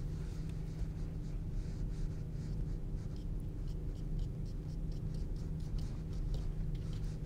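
Acrylic paintbrush dabbing and stroking on a textured canvas panel: a run of short, soft scratchy brush strokes over a steady low hum.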